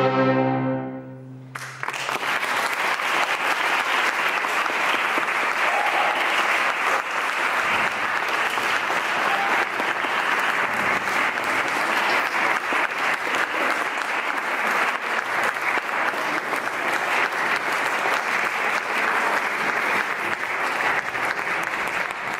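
A chamber ensemble's last held chord on violin, clarinet and strings fades out in the first second and a half, then the audience breaks into steady applause.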